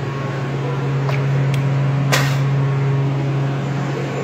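Steady low hum, with two light clicks about a second in and a sharper knock about two seconds in.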